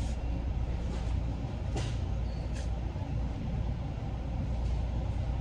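Steady low rumble of a large store's background noise, with a couple of faint clicks near the middle as bottles on the shelf are handled.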